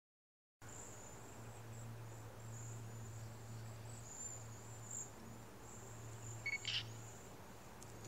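Faint outdoor background with a steady high whine and a low hum, and a couple of short chirps near the end from the flock of birds perched in the tree.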